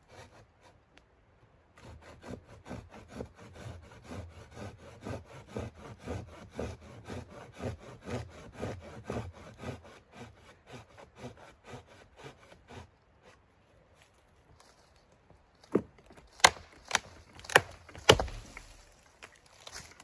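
Folding hand saw cutting through a dry log in quick back-and-forth strokes, about three a second, for some ten seconds. After a short pause the log breaks with several sharp loud cracks and splintering.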